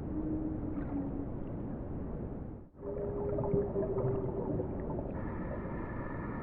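Whale calls in an underwater recording: low drawn-out moans over a steady hiss, the first dipping slightly in pitch. After a brief gap comes a longer steady moan, and higher held tones join near the end.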